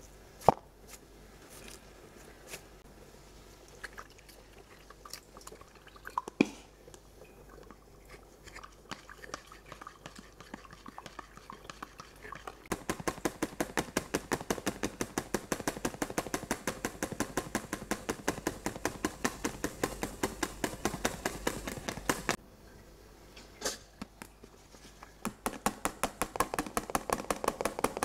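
Hand whisk beating a wet mixture in a bowl: quick, regular strokes, several a second, starting about halfway through, stopping for a few seconds and starting again near the end. Before that come scattered light utensil clicks and two sharp knocks.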